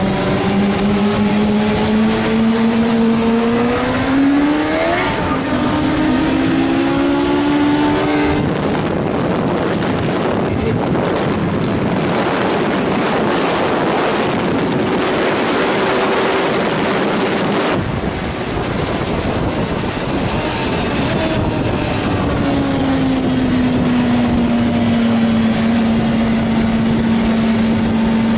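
Onboard sound of a Suzuki GSR's inline-four engine under hard acceleration, its note rising through the revs with a gear change about five seconds in. From about eight seconds a loud, even rush of noise at speed covers the engine note until about eighteen seconds. Then the engine note falls as the bike slows.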